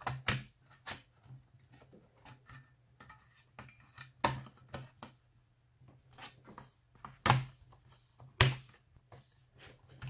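Sharp clicks and snaps of an HP Spectre x360 laptop's bottom cover being pressed back into place, its clips seating one after another. There are quieter ticks in between, and the three loudest snaps come about four, seven and eight and a half seconds in.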